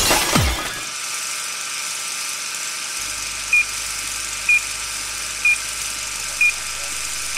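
Old-film countdown leader sound effect: a steady film-projector whir with crackle, and from about halfway through a short high beep once a second. A brief falling whoosh is heard at the very start.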